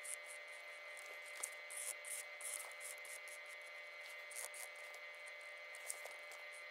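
Fine-tip marker drawing on sketchbook paper: a run of short, high, hissing scratches, one for each stroke of the pen, some in quick succession and some spaced out.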